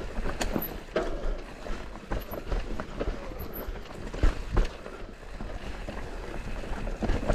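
Electric mountain bike rolling down a rough dirt trail: a constant tyre-and-trail noise with irregular knocks and rattles from the bike over bumps, and a low rumble of wind on the microphone.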